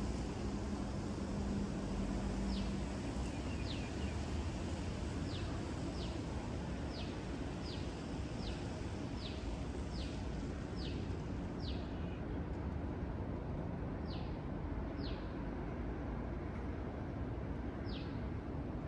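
A bird calling a dozen or so short, falling whistles, most under a second apart, growing sparser in the later part. Behind it is a steady outdoor background noise, with a low hum that stops about three seconds in.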